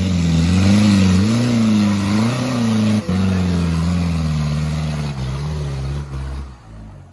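An off-road 4x4's engine revving under load, its pitch rising and falling, over a steady rush of noise. The sound drops away near the end.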